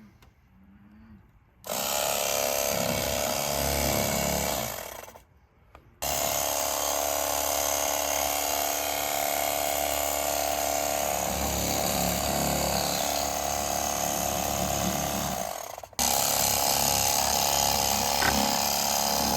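Electric fillet knife running in stretches while filleting catfish: a steady motor whine that stops for about a second around a quarter of the way in, then starts again, with an abrupt break near the end.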